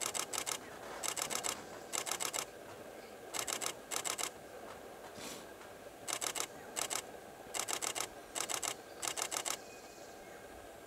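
Camera shutter firing in continuous-burst mode: about ten short rapid strings of clicks, each about half a second long, with pauses between them.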